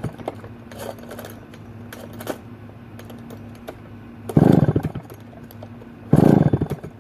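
McCulloch 1-71 chainsaw's 87cc two-stroke engine being pull-started on fuel primed into the carburettor, firing in two short bursts of about half a second each in the second half. It pops over on the prime but does not keep running.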